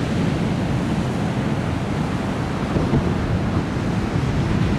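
Big hurricane-swell surf breaking and washing in a steady roar, with wind rumbling on the microphone.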